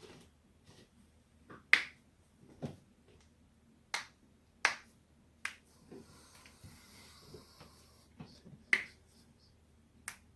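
Human joints cracking, neck and back vertebrae being popped: about seven sharp, short cracks spaced unevenly, the loudest about two seconds in and near the end.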